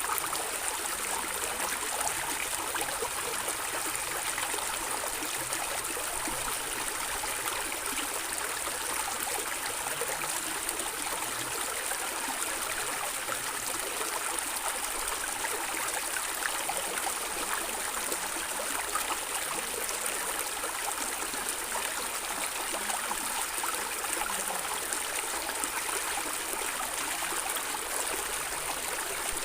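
Stream of water running and gurgling steadily, an even rushing hiss with no breaks.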